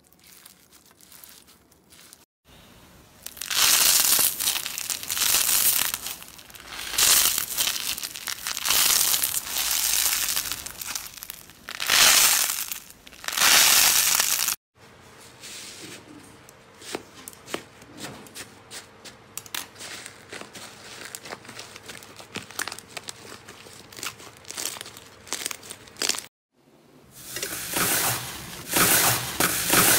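Hands squeezing and pressing crunchy, bead-filled slime, making dense crackling and popping in swells. It is faint at first, loudest through the middle, then a finer, quieter clicking crackle. Near the end comes a soft crunching crackle as a hand presses into a bowl of lavender slime.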